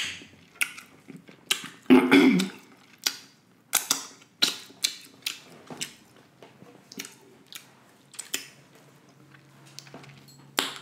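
Close-miked chewing of buttery boiled seafood: irregular wet clicks and smacks of the mouth, with a louder cluster about two seconds in.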